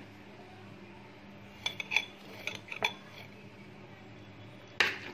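A metal spoon clinking lightly against a metal bowl of raw liver several times, then one louder knock near the end.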